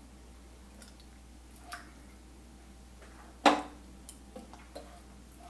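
Kitchen tongs clicking and tapping as seared chicken pieces are lifted from a skillet and set into a ceramic slow cooker. Several light ticks, with one sharper knock about three and a half seconds in.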